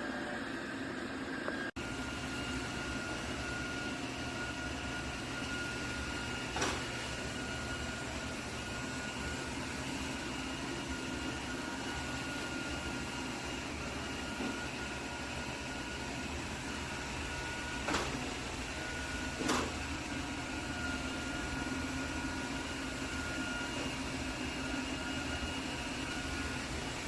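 iRobot Roomba combo robot vacuum running: a steady whir with a high whine over it, and three sharp knocks, two of them close together.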